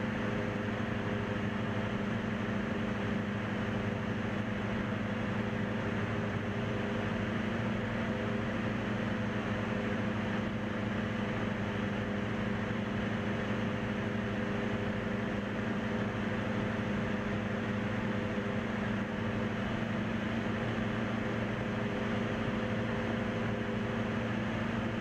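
Piston engine and propeller of a single-engine high-wing light aircraft running steadily in level flight, a constant drone heard from inside the cabin.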